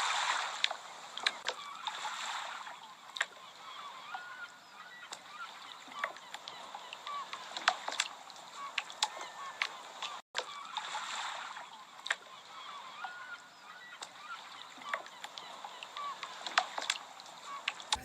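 Waterside harbour ambience: scattered sharp knocks and clicks and short squeaky, honk-like calls, with a few swells of splashing water. There is a brief dropout about ten seconds in.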